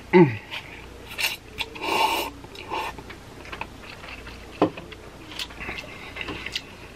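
Close-miked eating of instant ramen noodles: a slurp at the start with a brief falling hum, a longer noisy slurp about two seconds in, then chewing with scattered mouth smacks and clicks.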